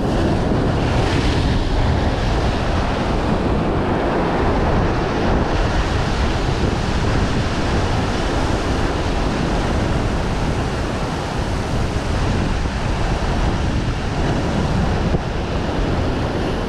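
Rough sea surf breaking and washing over rocks, with a louder crash about a second in, and wind buffeting the microphone with a heavy low rumble.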